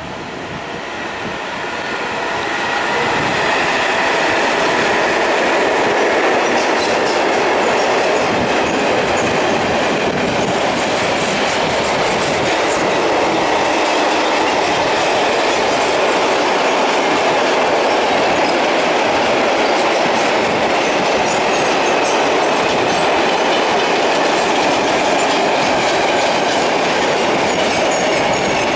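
A train running past on the rails: a steady loud rush of wheels and cars with clickety-clack of wheels over rail joints. It builds over the first three seconds, then holds level.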